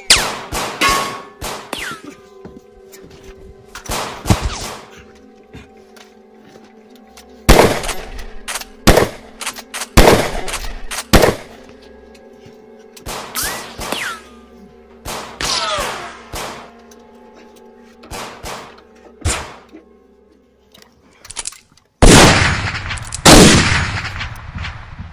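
Gunfire in a film gunfight: about a dozen single shots at irregular intervals, the two loudest near the end, over a steady low drone of background music.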